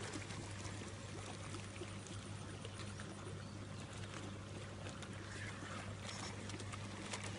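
Steady outdoor background noise: an even rushing hiss with a low, constant hum underneath, and no distinct splash or other event.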